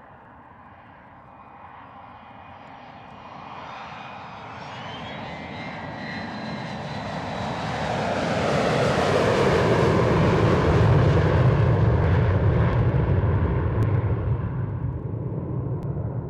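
Airplane passing low and close: its engine noise swells steadily, with a thin high whine in the approach, is loudest about two-thirds of the way through, then begins to fade.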